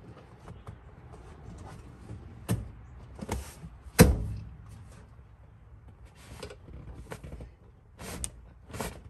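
Ballistic seat cover and its straps being pulled and worked through a car seat: scraping, rustling pulls and a few knocks, the loudest a sharp thump about four seconds in.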